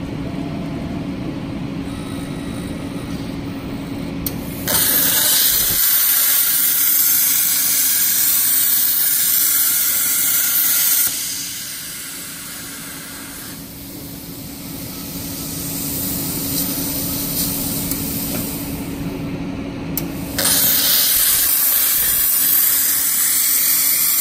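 CNC plasma cutting table torch working on 20 mm steel plate: a loud, steady hiss of the plasma torch starts about five seconds in, drops back to a low machine hum for several seconds, then returns about twenty seconds in and runs on as the torch cuts.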